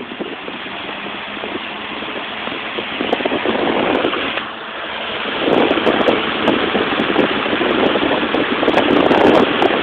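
Lakewood three-speed box fan running on high just after switching on, its rush of air growing louder as the blade comes up to speed, with uneven gusts in the second half.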